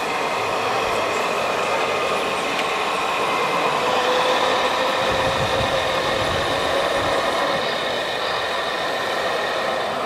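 Radio-controlled scale model Cat D25D articulated dump truck whining steadily as its tipper body raises to dump its load of soil. A second, higher whine joins about four seconds in.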